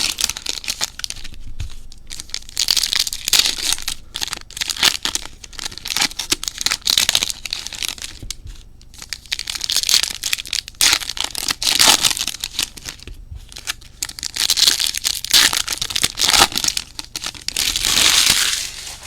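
Trading-card pack wrappers being torn open and crinkled by hand, in repeated bursts of crackling, with a longer tear near the end.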